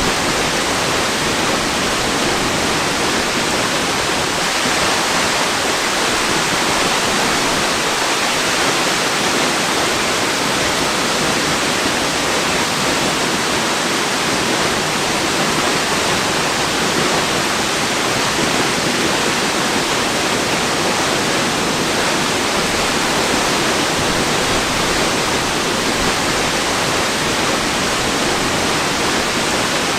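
Waterfall: water falling in a steady, even rush of noise, strongest in the mid and upper range and without change.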